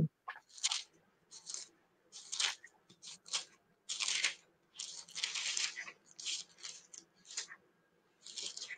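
Thin Bible pages being leafed through: a string of short, irregular paper rustles while looking up a verse.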